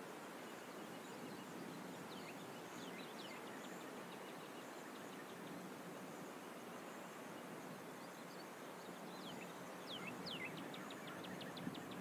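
Bird calls over a steady background hiss: quick downward-sliding whistles about two seconds in and again near the end, followed by a rapid trill of repeated notes.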